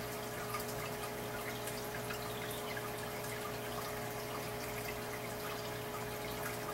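Water in a turtle tank trickling and dripping steadily over a constant low hum.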